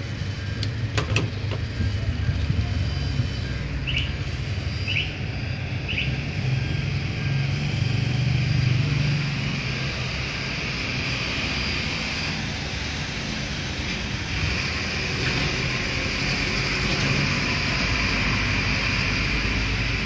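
DIY dual-boiler espresso machine running with a steady low hum. A few sharp clicks come about a second in as the portafilter is locked into the group head, then three short beeps about a second apart. A hiss grows stronger in the second half.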